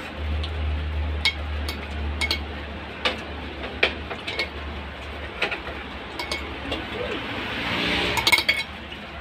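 Close-up eating by hand from a ceramic plate: scattered sharp clicks and clinks of chewing, lip smacking and fingers touching the plate, with a quick cluster of clicks near the end. A steady low electric-fan hum runs underneath and weakens about halfway.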